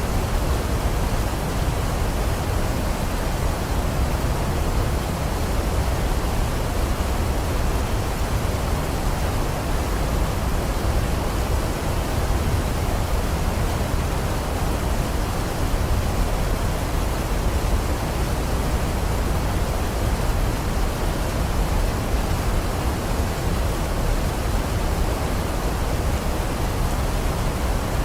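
Waterfall: a steady, even rush of falling water, heaviest in the low end, with no change throughout.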